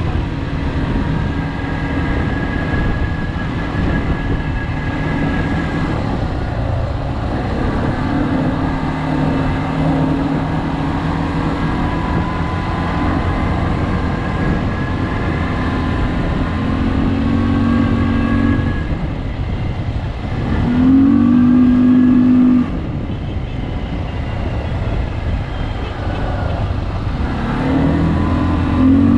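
An ATV engine running while it is ridden, its pitch rising and falling with the throttle. It revs up louder for about two seconds roughly three-quarters of the way through, and again near the end.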